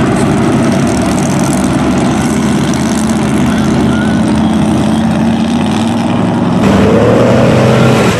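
Lifted Chevy Suburban mud truck's engine running steadily as it wades through deep mud and water, then revving up with a rising pitch near the end.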